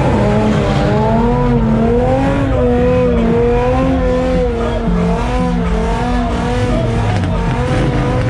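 Car engine held at high revs with a long, wavering squeal of spinning tires during a burnout, loud and continuous.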